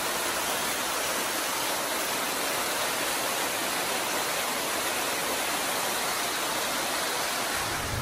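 Small waterfall splashing down a rock face: a steady, even rush of falling water.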